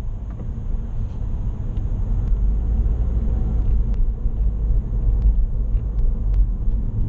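Road noise inside a moving car's cabin: a steady low rumble of engine and tyres, with a few faint scattered ticks.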